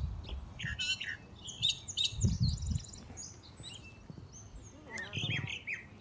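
Songbirds singing: a quick run of short, varied high chirps and song phrases, then a few more notes near the end.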